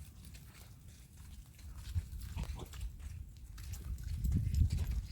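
Wind buffeting the microphone as a low rumble, growing stronger over the second half.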